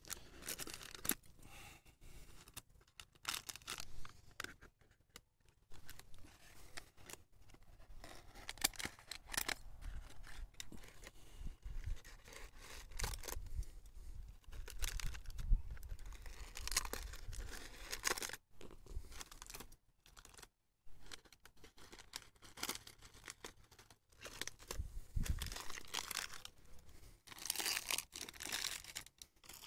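Paper and plastic bags crinkling and tearing as scissors cut them open over a graft, in irregular rustles and snips.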